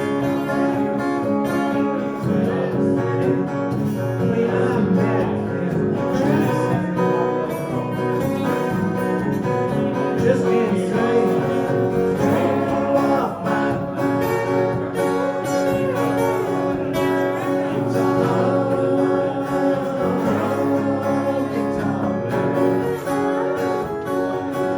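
Country-style music with strummed acoustic guitar and a melody line over it.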